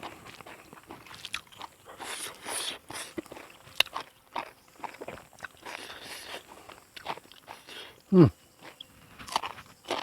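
Close-up eating sounds: irregular crunching, biting and chewing of food, with small clicks and mouth noises. A short falling vocal sound comes about eight seconds in.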